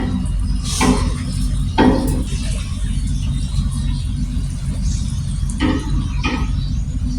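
An engine running steadily, a low even hum, with four short sharper sounds over it about a second in, near two seconds, and twice near the end.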